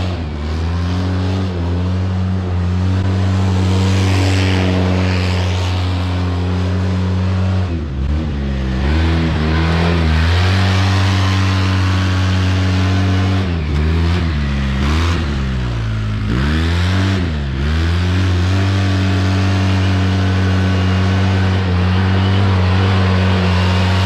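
Polaris RZR 800 side-by-side's twin-cylinder engine running at steady high revs while the machine spins donuts in dirt. The revs drop and climb back up twice around the middle. The engine has freshly replaced rod bearings.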